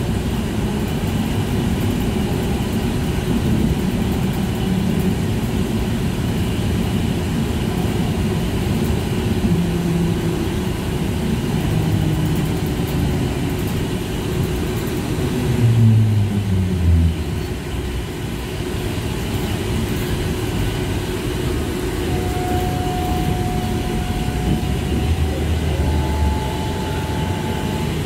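TrolZa-62052.02 trolleybus running, heard from inside: steady road and running noise with a low electric hum. About halfway through, a tone falls in pitch over a couple of seconds. Later a thin steady whine comes in and steps up in pitch near the end.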